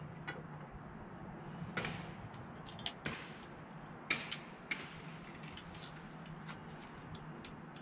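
Light metallic clicks and scrapes of a steel feeler gauge blade and straight edge against the deck of a 5.9 Cummins cylinder head, being worked into the gap to check the head for flatness. The clicks are scattered and irregular, with a few sharper ones about two, three and four seconds in.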